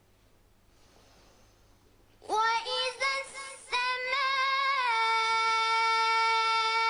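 Melodic Quran recitation: after a short quiet pause, a high voice begins the verse 'wa idha' in a few short gliding phrases, then holds one long steady note.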